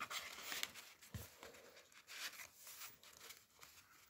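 Faint rustling and scraping of paper as handmade paper tags and journaling cards are handled and slid back into a paper pocket of a journal. It is loudest in the first second, with a further burst of rustling about two seconds in.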